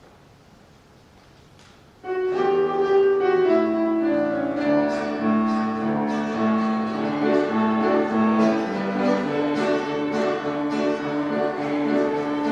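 Faint room tone, then about two seconds in instrumental music starts suddenly: sustained pitched notes with sharp, regularly repeated attacks, which the tags read as piano with bowed strings.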